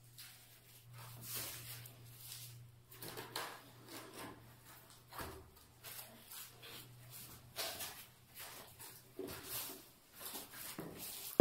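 Irregular soft scrapes and light knocks of gloved hands pressing and sweeping over a freshly laid large floor tile, over a low hum that stops about halfway.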